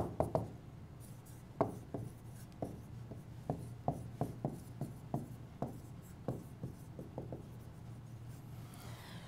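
Pen stylus writing on a tablet: irregular light clicks and taps, about one or two a second, that stop about three-quarters of the way through.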